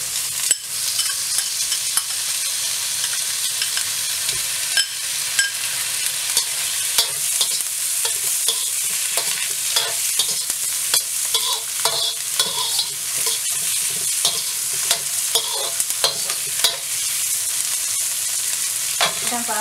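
Tofu, dried shrimp and shallots sizzling in hot oil in a wok, stirred with a metal slotted spatula that clicks and scrapes against the pan again and again.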